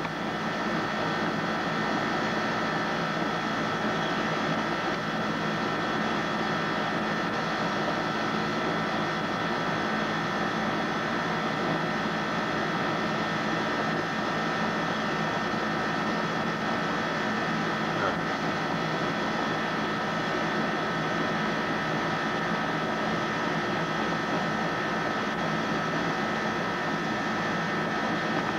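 A steady machine-like hum and hiss with several fixed whining tones, never changing in level.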